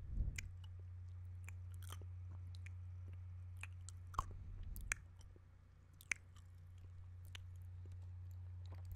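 Close-miked wet mouth sounds from a man's mouth: sucking, lip smacks and sharp tongue clicks scattered irregularly, with louder, fuller bursts near the start and again around four to five seconds in, over a steady low hum.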